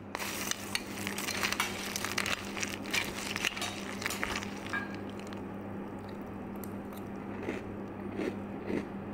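Dry granola and cookie cereal pouring into a ceramic bowl, the pieces clattering and crackling for about four seconds. Then milk pours in, softer and steadier, with a few louder ticks near the end.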